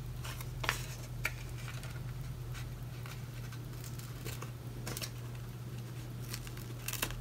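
Steady low electrical hum with a few faint, scattered clicks and light rustles of small objects being handled off to the side.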